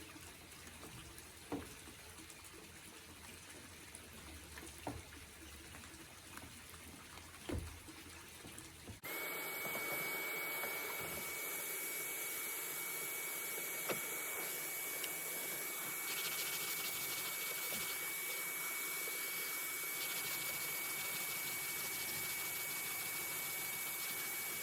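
A few faint knocks and handling sounds, then about nine seconds in a vacuum cleaner switches on abruptly and runs steadily with a constant high whine, sucking up sanding dust.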